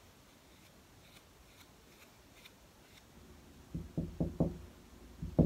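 Quiet room tone with a few faint ticks, then near the end a run of quick knocks on a hollow interior door, about four or five a second.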